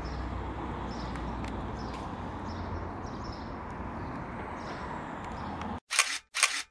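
Steady outdoor background hum with faint high chirps, which cuts out abruptly near the end. Two sharp clicks follow about half a second apart.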